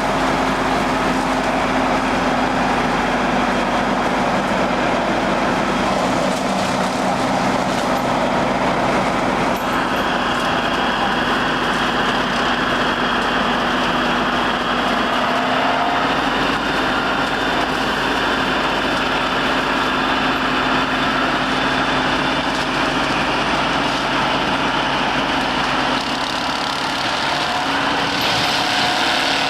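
KhTZ-150K wheeled tractor running a front-mounted stump-milling mulcher: the diesel engine and the spinning cutter drum make a loud, steady machine noise with a constant hum. The sound shifts about ten seconds in and again near the end.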